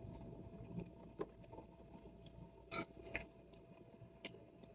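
Faint eating noises: a few soft clicks and smacks from a person chewing, licking their fingers and tearing bread, over a faint steady hum.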